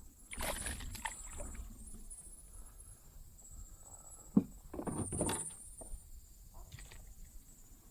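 A small fish being landed into a kayak: irregular splashing and handling noises, with a single sharp knock about four and a half seconds in.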